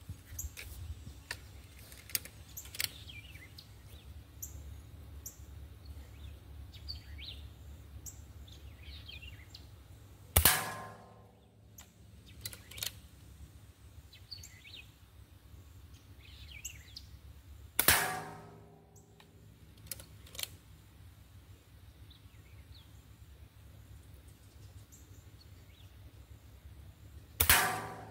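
Three shots from a Gamo Swarm Whisper .22 air rifle firing pellets at metal targets, about seven and ten seconds apart. Each is a sharp crack followed by about a second of ringing from the struck metal target.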